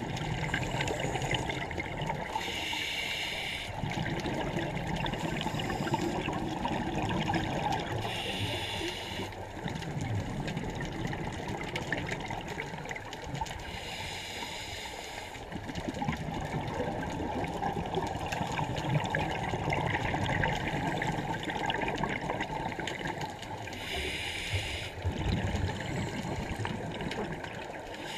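Scuba diver breathing through a regulator underwater: four short hissing inhalations spaced several seconds apart, with a bubbling gurgle of exhaled air between them.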